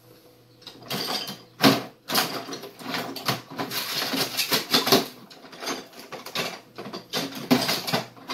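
Clattering, clicking and scraping of hard objects being handled and moved about on a workbench, with one sharper knock about a second and a half in.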